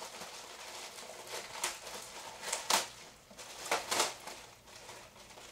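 Clear plastic packaging crinkling and rustling as a belt is pulled from its bag, with a few sharper crackles around the middle.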